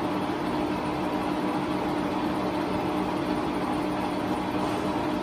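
Enco model 111-3940 engine lathe running under power, its spindle turning: a steady hum with a constant tone from the motor and headstock gears.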